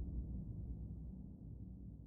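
Low, deep drone of the trailer's score music, fading out.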